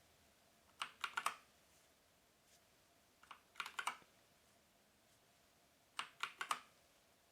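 Keys of a Havit mechanical keyboard with Kailh brown switches being pressed and released: three short clusters of clicks, about two and a half seconds apart, as the Function and Page Down keys are tapped together again and again.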